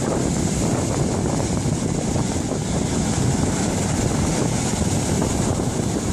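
Sea surf breaking and washing up a sandy beach in a steady wash of noise, with wind buffeting the microphone.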